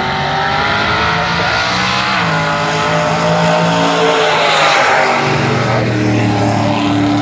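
Two drag-racing cars, a Chevrolet S10 pickup and a Dodge Dart, accelerating hard down the strip at full throttle. The engine pitch climbs, drops once at a gear change about two seconds in, then climbs again, loudest as the cars pass about four to five seconds in.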